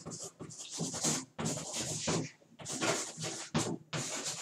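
Chalk scratching on a blackboard as words are written, in a run of short strokes with brief pauses between them.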